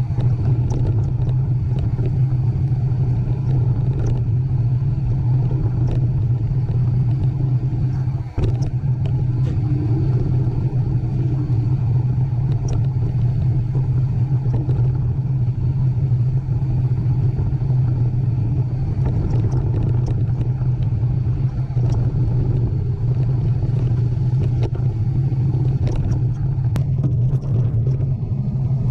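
Steady low rumble with a constant hum, the sort a running vehicle makes, with scattered faint clicks and a brief dip about eight seconds in.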